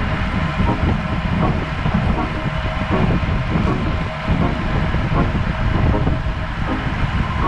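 Steady road and wind noise from riding on the road: a loud, continuous low rumble with a faint steady hum.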